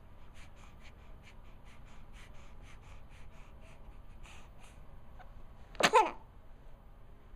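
A single short, sharp sneeze about six seconds in, with soft breathing sounds before it.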